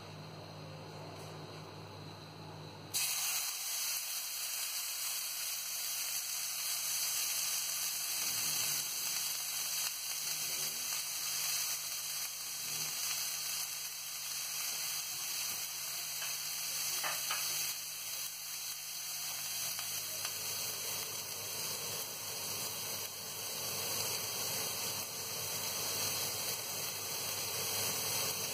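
Boneless leg of lamb searing in a hot ridged grill pan: a steady, even sizzle that starts suddenly about three seconds in.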